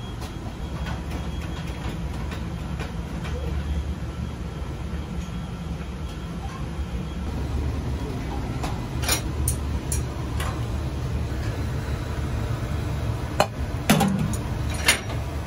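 Busy commercial kitchen: a steady low rumble of kitchen equipment, with a few sharp knocks and clinks of bowls and utensils, several of them near the end.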